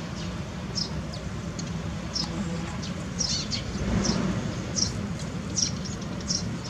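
Short, high, sweeping animal chirps repeating about every half second to second, over a steady low rumble.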